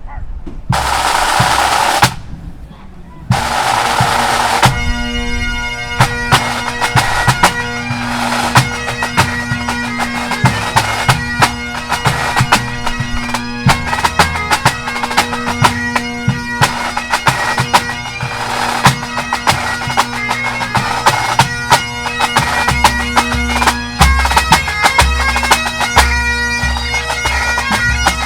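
Pipe band of Highland bagpipes and drums. It opens with two short rolls on the snare drums, then the pipes strike in about five seconds in, steady drones under the chanter melody. Snare drums and a bass drum play along.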